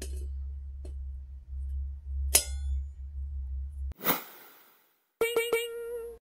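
A single ringing metallic clink on a steel plate over a steady low hum. Then a whoosh and three quick bell-like dings, the sound effects of a 'like and subscribe' animation.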